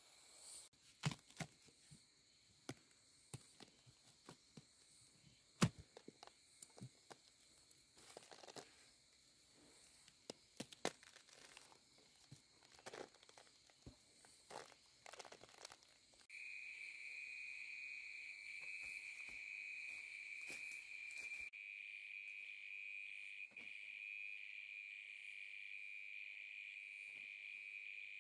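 Scattered sharp clicks, crackles and rustles of something being handled. About halfway through, a steady, high-pitched insect trilling sets in and keeps going.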